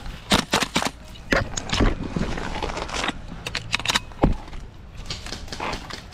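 Irregular clicks, knocks and rattles of gear and a gas blowback rifle being handled and moved, with rustling of brush and a few heavier thuds.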